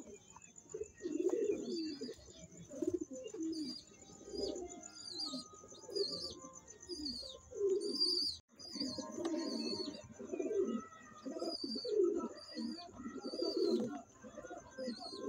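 Several pigeons cooing over one another in low, rolling phrases. Short, high, falling chirps repeat throughout, over a steady high-pitched whine.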